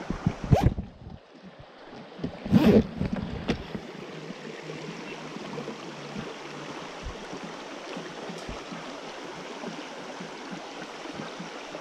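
Shallow rocky creek flowing with a steady rushing hiss. A few knocks and rustles from the camera being handled come in the first three seconds or so.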